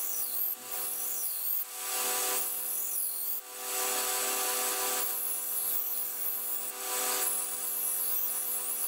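A 2x72 belt grinder running with a steady hum while a high-carbon steel knife blank, cut from an old circular saw blade, is ground against the belt: a loud hissing grind in repeated passes, breaking off briefly every second or two as the blade is lifted and set back on.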